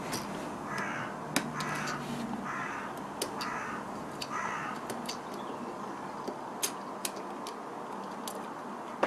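Sharp small clicks scattered throughout as fingers handle and press the plastic and metal parts of an opened smartphone. In the first half a harsh call, like a caw, sounds five times about a second apart.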